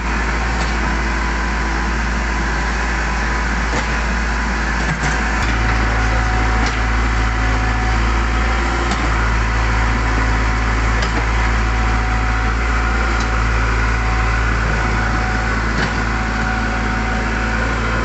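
Backhoe's diesel engine running steadily while digging, its low tone stepping up about five seconds in and holding there, with a few scattered knocks.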